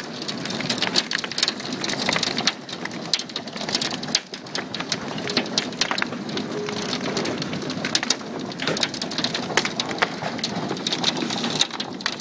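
Hailstorm: hailstones pelting a wooden deck, a dense steady hiss full of sharp clicks and ticks from individual stones striking.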